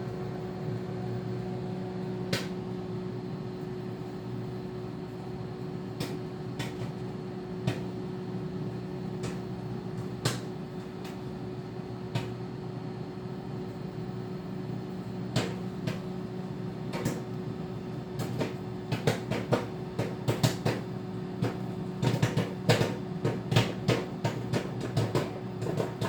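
Microwave popcorn popping inside a running microwave oven: the oven's steady hum, with sharp pops at first scattered a few seconds apart, then coming thick and fast over the last several seconds as the popping gets going.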